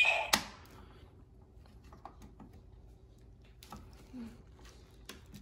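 Hasbro Power Morpher toy being handled: a sharp plastic click about a third of a second in, then faint clicks and taps as the power coin is fitted.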